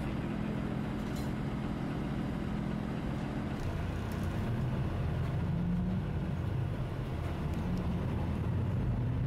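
Route bus engine idling with a steady hum, then pulling away about three and a half seconds in, its note rising as it gets under way. Heard from inside the bus.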